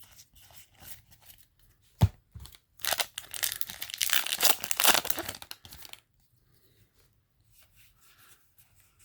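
A Yu-Gi-Oh! booster pack wrapper being torn open, with about three seconds of tearing and crinkling starting around three seconds in. Before it come light ticks of card handling and one sharp knock near two seconds in.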